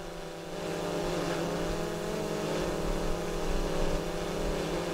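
DJI Mavic 2 Pro quadcopter hovering low overhead: a steady propeller hum made of several held tones, growing slightly louder about half a second in. Directly beneath it, it reads around 74 to 76 dB on a sound level meter.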